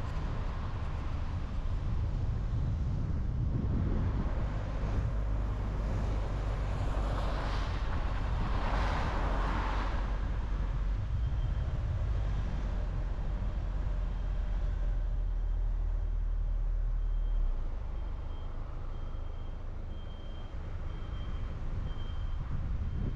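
Car driving along a road: a steady low rumble of tyres and engine, with a louder rushing swell about eight to ten seconds in. A faint, high, broken beeping runs through the second half.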